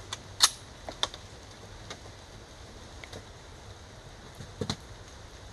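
A few sharp mechanical clicks and clacks, the loudest about half a second in, another just after a second, fainter ones later, and a quick pair near the end.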